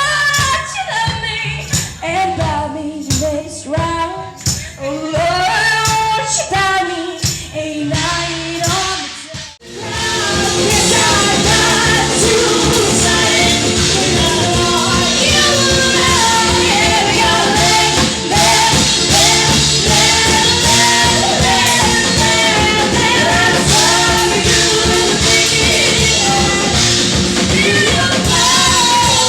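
Live band music with singing: a voice over sparse backing, then a sudden cut about ten seconds in to a full band playing loudly and steadily with vocals.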